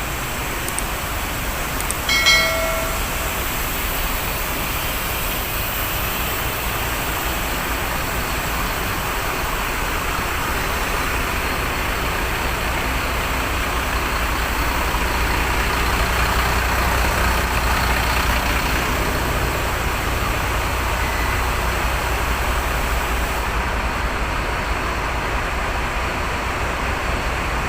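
Strong wind buffeting the microphone with waves surging against the pier, a steady noisy rush over a deep rumble. A brief high-pitched tone sounds about two seconds in.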